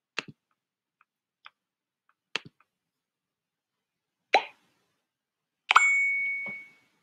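A few short sharp clicks, then the sound effects of an animated logo intro: a single plop and, near the end, a bright ding with a ringing tone that fades over about a second.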